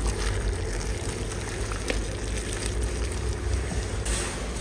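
Boiling water poured from a pot over fresh pea shoots in a bowl, over a steady hiss.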